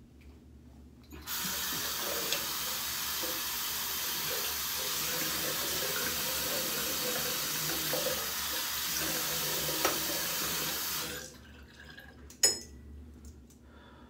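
Bathroom sink tap running in a steady stream for about ten seconds, then turned off. About a second after it stops comes a single sharp knock.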